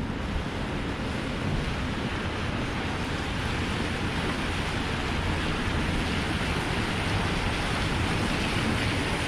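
Heavy rain, a steady even hiss of rain falling and splashing on the street.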